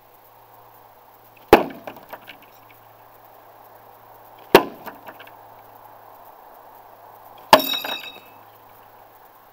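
Throwing knives striking a wooden plank target, three sharp hits about three seconds apart, each followed by a brief rattle of the board. The last hit rings metallic.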